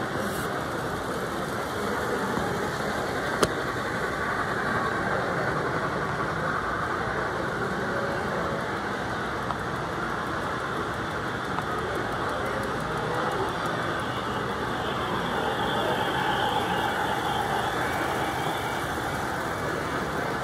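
Model trains running on the layout's track, a steady rumble of wheels and motors as freight cars roll over steel trestle bridges, with a single sharp click a few seconds in.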